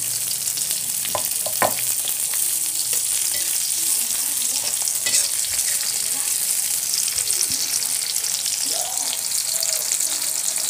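Chopped chillies, shallots and garlic sizzling steadily in hot oil in an aluminium wok, with a metal spatula scraping and knocking against the pan now and then, sharpest about a second and a half in.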